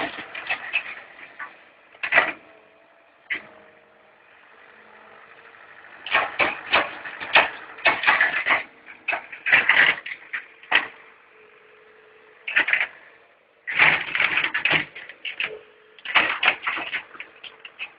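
Excavator at work: bursts of clattering and cracking come and go several times over a faint steady engine hum.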